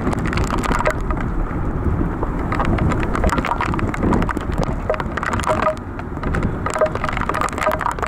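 Heavy rain and wind lashing a moving car, with a steady low rumble and many small drops crackling against the body and glass.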